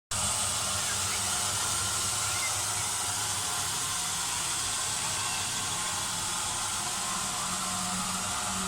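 Belt grinder running steadily: a constant hiss from the moving abrasive belt over a low motor hum.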